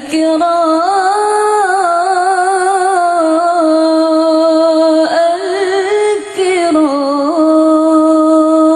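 Arabic devotional song (sholawat) as background music: a single voice holds long, wavering notes with ornamented turns, with short breaks about five and six seconds in.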